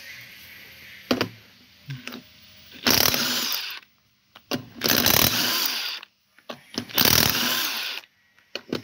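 Cordless impact wrench running in three bursts of about a second each, spinning off 19 mm wheel lug nuts one after another, with a couple of small clicks of the socket going onto the nuts before the first burst.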